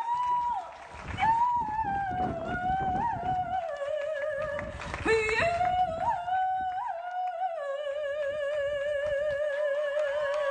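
A woman singing solo into a microphone: a high, wordless line that slides between notes, with a quick upward run about five seconds in. She then settles into one long held note with vibrato for the last few seconds.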